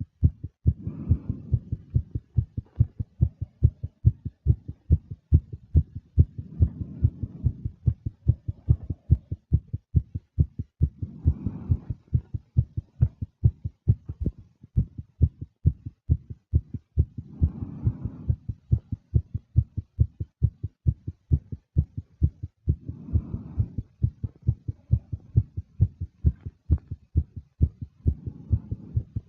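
A fast heartbeat, an even, rapid run of low thumps. Over it a woman breathes, one breath every five or six seconds.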